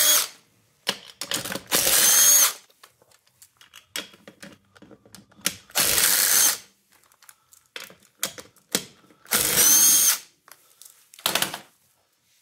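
Cordless impact driver with a socket spinning off the ATV's wheel nuts, in short bursts of under a second, about four times, with small clicks of the tool and nuts being handled in between.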